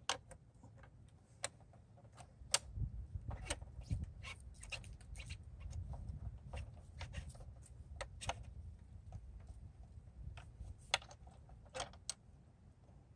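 Irregular small clicks and ticks of screws and the plastic tail section being handled as the tail's mounting screws are threaded in, over a low rumble.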